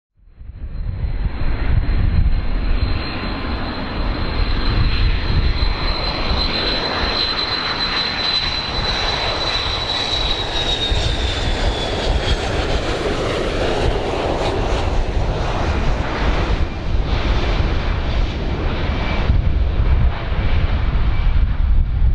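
Boeing 727's three Pratt & Whitney JT8D jet engines passing low on approach: a steady jet roar with a low rumble and a high whine that drops in pitch about halfway through as the aircraft goes by.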